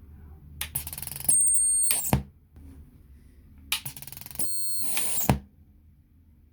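PreSonus Eris 3.5 studio monitor making its faulty power-up noise twice: each time a loud hiss with a shrill high-pitched squeal that lasts about one and a half seconds and ends in a sharp pop. This is the unusual noise the speaker makes instead of clean audio.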